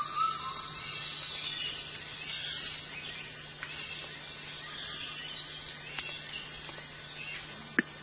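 Steady high-pitched drone of jungle insects, with a few faint clicks and a sharper click near the end.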